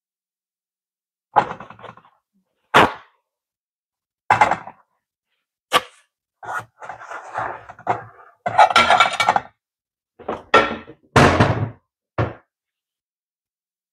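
A run of about ten irregular knocks, thunks and short clatters, the handling of dishes, utensils and cupboard doors in a kitchen.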